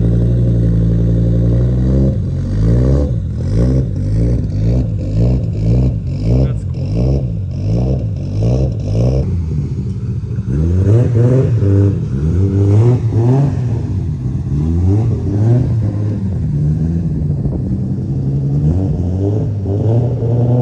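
Audi S6's five-cylinder engine being revved: held at a steady pitch for about two seconds, then blipped up and down over and over, its pitch rising and falling with each rev.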